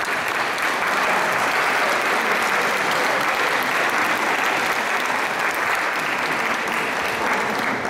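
Audience applauding steadily for several seconds, fading out just after the end.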